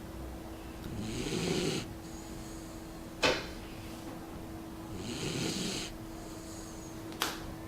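A pet snoring: two slow snoring breaths about four seconds apart, with a sharp click between them and another near the end.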